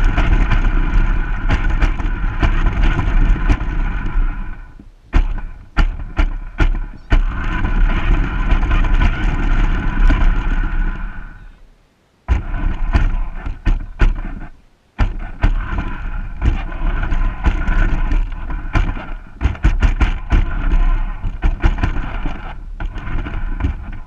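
Small toy RC car's electric motor whining as it drives, picked up by the camera riding on it, with a low rumble from its wheels on rubber playground surfacing. The motor stops and starts again several times, with clicks and knocks in the gaps.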